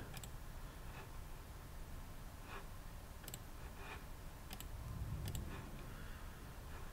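A few faint clicks of a computer mouse button, spread over several seconds, some of them double (press and release).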